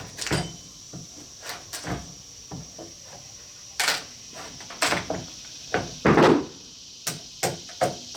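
Irregular wooden knocks and clunks, about a dozen at uneven spacing, the loudest a heavier thud a little after six seconds in, over a steady high buzz of insects.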